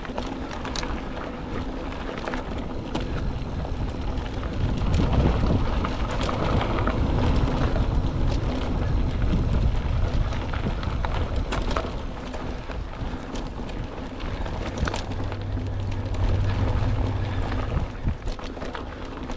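Mountain bike riding over dirt singletrack: wind buffeting the microphone and tyres rolling, with scattered sharp clicks and rattles from the bike over bumps. The wind rumble is strongest through the middle.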